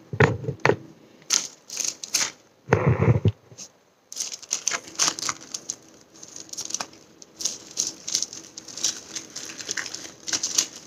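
Clear plastic sleeve around a potted plant crinkling and crackling in irregular bursts as it is handled and unwrapped, with a couple of dull knocks in the first three seconds.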